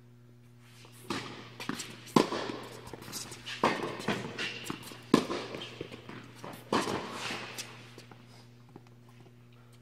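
Tennis rally: sharp racket-on-ball hits and bounces about every second and a half, echoing in a large indoor court hall, with shoes scuffing and running between the shots. The rally stops about seven seconds in, leaving a steady low hum.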